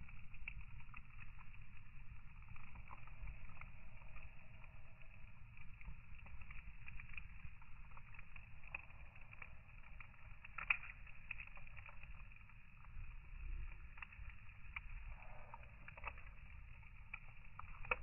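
Wood fire burning: a low steady rumble of flames with scattered small crackles and pops, and one louder crack a little past halfway through.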